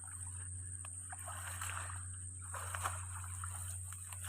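Water sloshing and splashing close by, in two short stretches about a second and two and a half seconds in.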